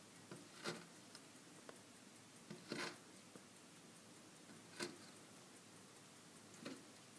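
Faint scrapes of a child's snow shovel pushing through snow on paving: four short strokes about two seconds apart, the second one a little longer and louder.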